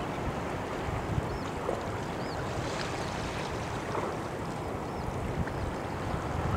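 Gentle water lapping at the estuary shore, a steady wash with wind noise on the microphone, and a few faint high chirps.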